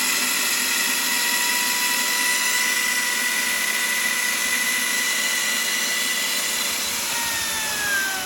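Electric power cutting tool running at full speed with a steady high whine as it cuts open a cardboard box, then winding down in pitch near the end.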